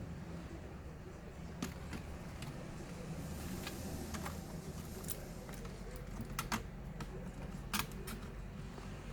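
Scattered light clicks and taps, about eight of them at uneven intervals, as small plastic and metal parts of a laptop are handled during disassembly, over a steady low hum.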